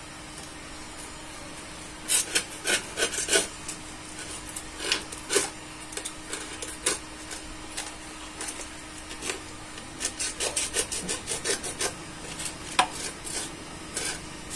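Short, irregular rasping and rubbing strokes of hand work on sandpaper at the edge of a homemade sanding disc, coming in clusters with pauses. A faint steady hum runs underneath and fades out about two-thirds of the way through.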